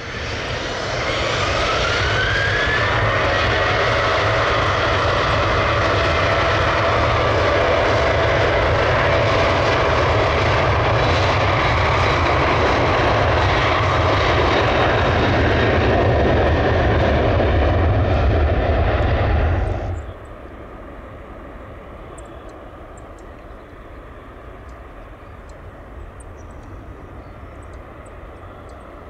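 Boeing 777-300ER's GE90-115B turbofan engines running at taxi, loud and steady, with a whine that rises in pitch over the first few seconds. About two-thirds of the way through the sound drops suddenly to a much quieter, steady jet engine hum.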